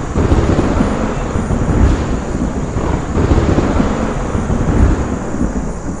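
Thunder rumbling: a loud, low, continuous rumble that swells and eases several times.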